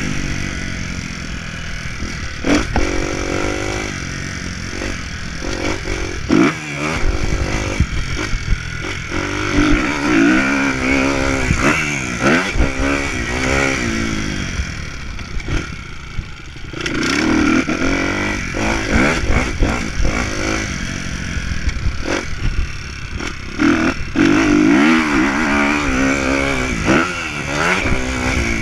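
A motocross dirt bike's engine heard from the rider's chest while riding, its pitch rising and falling over and over as the throttle is opened and closed through the track. Wind rushes across the microphone, with scattered knocks and clatter as the bike hits bumps.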